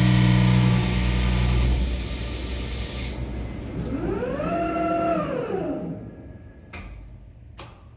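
Diamond-cut wheel lathe running a finishing pass on a Ford Raptor alloy wheel: a steady machine hum with the tool cutting, which dies away about two seconds in as the cut ends. A motor whine then rises, holds and falls over about two seconds as the tool head moves away. Two sharp clicks come near the end.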